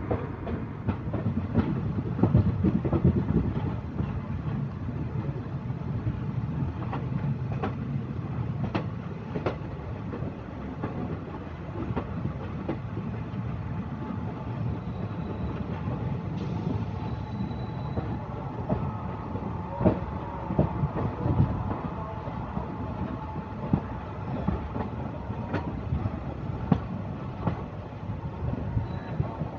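Passenger train running at speed, its wheels rumbling on the rails with irregular sharp clicks and clatter over rail joints, heard from the side of the moving coach.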